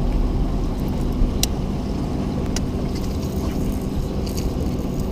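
Steady low hum of a bass boat's motor, with a few faint clicks over it.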